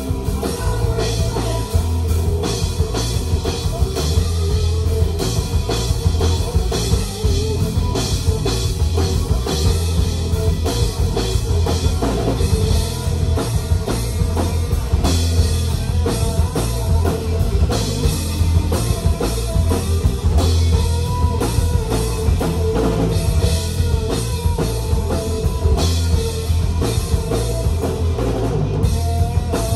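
Live rock band playing a song, a drum kit keeping a steady beat over guitar and bass.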